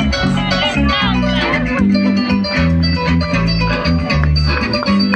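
Instrumental Latin American music led by plucked strings over a steady, loud bass line.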